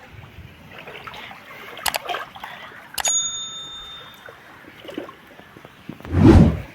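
Floodwater trickling and splashing, with two sharp clicks, the second followed by a short bell-like metallic ring about three seconds in. A loud, dull thump comes near the end.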